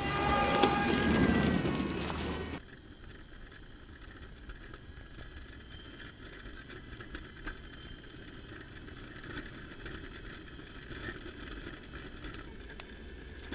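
Small electric rover rolling along towing a wagon: steady wheel and drive noise with a faint whine. It opens with a louder stretch of several held tones that cuts off abruptly about two and a half seconds in.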